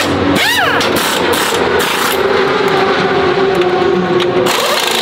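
Pit-lane noise during a racing-motorcycle pit stop: a steady engine drone with sharp clicks and knocks from the crew's work, and a brief whine that rises and falls about half a second in.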